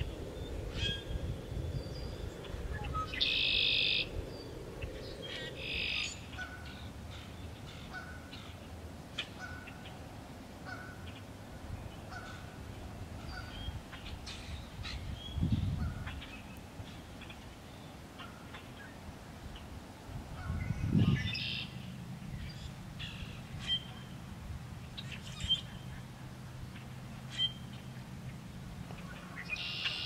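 Wild birds singing and calling in a wetland: a blackbird's song rings out four times, about a second each, over a run of short repeated call notes. Underneath is a low steady rumble, with a couple of dull thumps.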